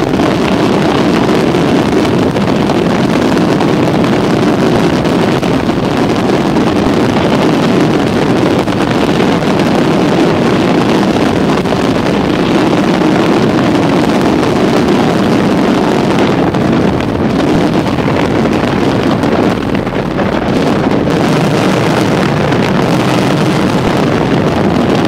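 Aerial fireworks barrage from a Chiarappa Fireworks display: many shells bursting on top of one another so fast that the reports merge into one loud, continuous rumble.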